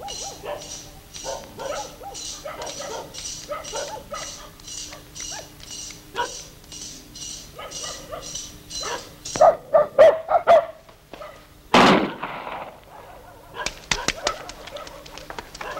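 High-pitched chirping, most likely insects, in an even pulse of about two chirps a second. About ten seconds in comes a quick run of loud dog barks, then a single loud sharp crack.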